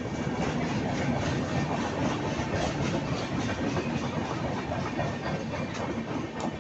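Passenger coaches of an Indian Railways express train rolling past at close range: a steady rumble of wheels on rail, full of quick, uneven clicks as the wheels cross rail joints, with one sharper click near the end.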